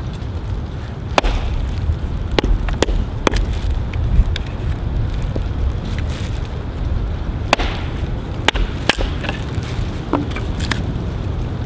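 Small axe striking and splitting a dry elm log: about eight sharp wooden knocks at irregular intervals, over a steady low rumble.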